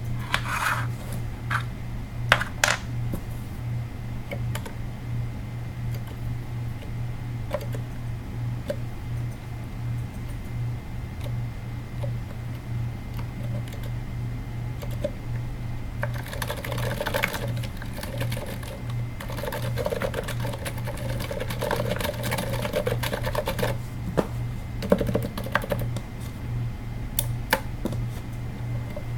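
Typing on a Katana-60 keyboard with 78g Zilents silent tactile switches, whose sliders are rubber-dampened on both the downstroke and the upstroke: soft, muted keystrokes. They are scattered at first, then come as a run of continuous typing from a little past halfway. A low steady hum runs underneath.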